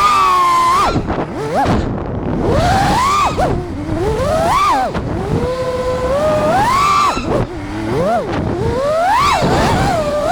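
A 5-inch FPV freestyle quadcopter's brushless motors whining, the pitch swooping up and down over and over as the throttle is punched and chopped.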